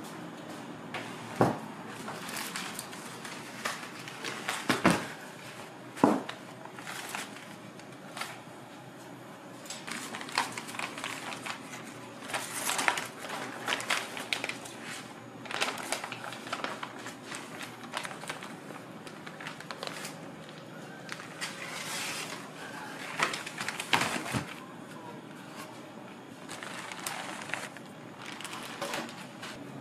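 Parchment baking paper rustling and crinkling as it is handled and peeled off a large sponge cake, with several sharp knocks of a metal baking tray on a stainless steel counter, the loudest about a second in, around five and six seconds in, and again near the middle.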